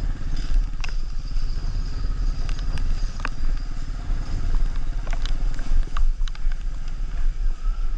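Motorcycle engine running steadily underway, a low rumble with a fine, even pulse, with scattered short clicks over it.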